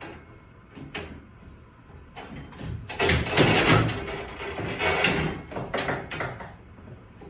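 Metal clanks and scraping as a new garage door torsion spring and its end cone are worked back onto the torsion shaft: a few knocks, then a longer rough scrape about three seconds in, then more clatter.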